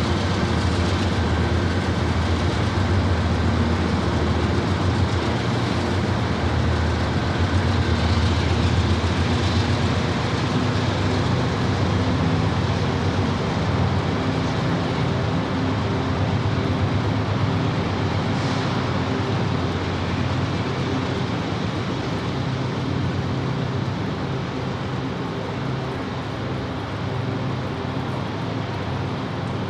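Diesel locomotive engines of a freight train running with a steady low hum, slowly getting quieter.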